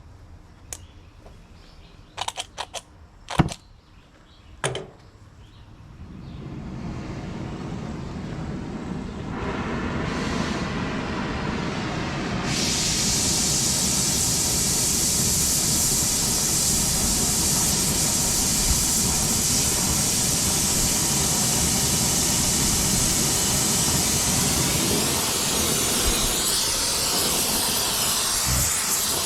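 Gas torch with a rosebud heating tip being lit and turned up: a few sharp clicks in the first five seconds, then a hiss that builds in steps and settles, about twelve seconds in, into a steady loud roar of flame.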